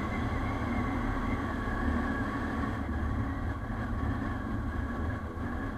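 Motorcycle engine running steadily while riding at cruising speed, a constant low drone mixed with a hiss of wind and road noise.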